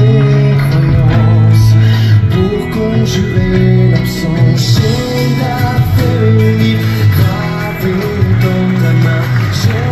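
Music with long held low bass notes and a melody line moving above them.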